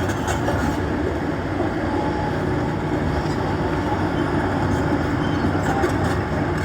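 Excavator working, a steady mechanical rumble.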